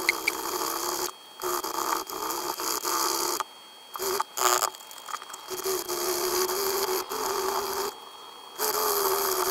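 A small epoxy-potted inductor (fine wire wound on a ferrite core) rubbed back and forth by hand on sandpaper, grinding the sample down toward its centre to expose a cross-section. It makes a steady scratchy rasp in long bouts, broken by short pauses about a second in, near four seconds and near eight seconds.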